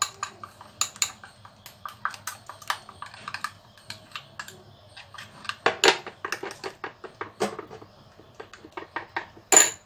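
Spoon beating a paste-thin liquid in a glass bowl: rapid, irregular clinks and taps of the spoon against the glass, several a second, with louder knocks about six seconds in and near the end. The beating is breaking up lumps of liquorice-root (mulethi) powder stirred into strained mustard-seed liquid.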